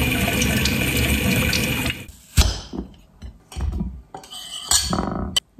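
Kitchen tap water running steadily for about two seconds, then a sharp knock and a few scattered light kitchen handling noises.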